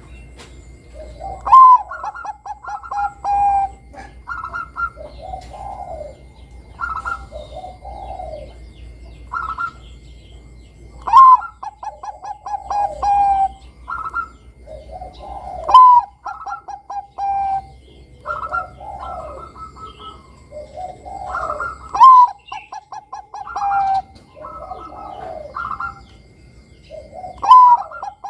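Bangkok-type zebra dove (perkutut) singing its cooing song. Five loud phrases, each a high opening note followed by a quick run of short, clipped coos that trails off, with softer coos in the gaps between them.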